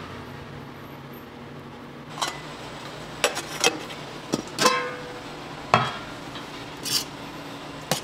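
A scattering of short, sharp clicks and clinks, about eight in all from about two seconds in, one ringing briefly with a clear tone, over a steady low hum.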